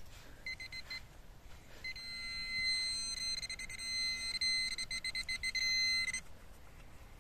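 Handheld metal-detecting pinpointer (Garrett-type orange probe) beeping as it is pushed through loose soil. It gives two short beeps, then from about two seconds in a rapid, almost continuous beeping that stops suddenly about six seconds in, the sign that the tip is right on a metal target.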